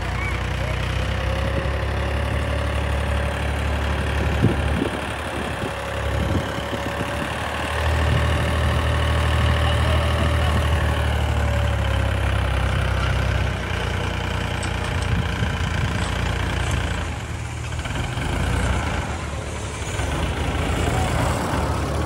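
Heavy diesel machinery engine running steadily, getting louder about eight seconds in, with a sharp knock about four and a half seconds in.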